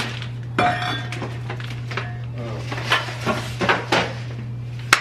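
Kitchen clatter while groceries are put away: a string of about half a dozen sharp clinks and knocks of dishware and packages being handled and set down, one with a short ring, over a steady low hum.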